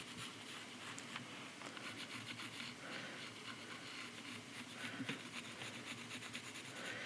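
Faint handling noise of carved wooden cups: light rubbing and scattered small taps.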